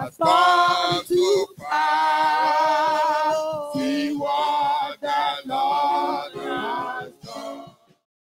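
Worship song sung by a woman into a microphone with the congregation's voices, in long held notes with a wavering pitch and short breaks between phrases. The singing cuts off suddenly near the end.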